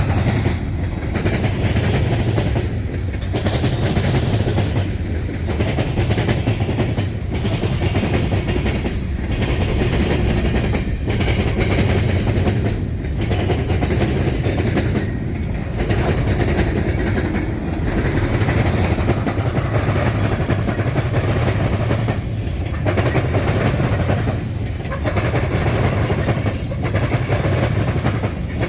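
Freight train cars rolling past, with a steady clatter of wheels on the rails. The noise dips briefly about every two seconds.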